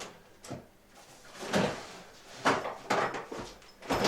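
A string of short knocks and rustles, about six over a few seconds, from things being handled and set down on a table.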